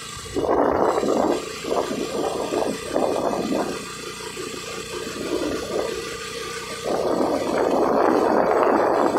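Wind buffeting the microphone on a moving motor scooter: a loud rushing noise that comes and goes in gusts, easing off from about four seconds in and swelling back up near the end.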